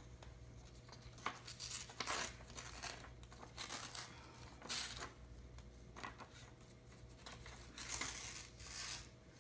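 A magazine page being torn by hand in a series of short rips, with paper rustling between them; the longest rips come near the end.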